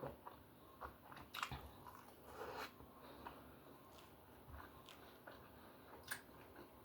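A person chewing and biting food close to the microphone: quiet, wet mouth sounds with a few sharper clicks and crunches, the clearest about a second and a half, two and a half and six seconds in.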